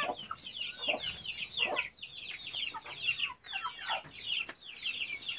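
Chickens with a brood of chicks: many chicks peeping in quick, high, falling calls, with a few lower hen clucks mixed in.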